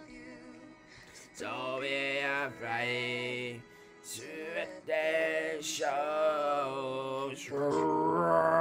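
A slow ballad: a singing voice holds long, wavering notes in phrases of a second or more, with short breaks between them, over soft sustained accompaniment.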